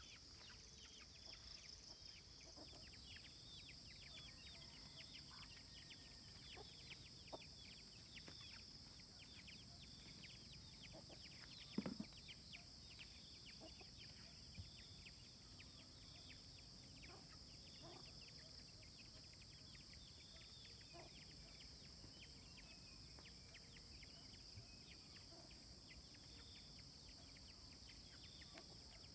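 Faint rural dusk ambience: a steady high insect drone, with many short high chirps and one brief louder sound about twelve seconds in.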